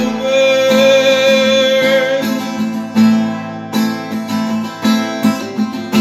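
Acoustic guitar strummed in a slow pattern, with a man's sung note held over the first two seconds.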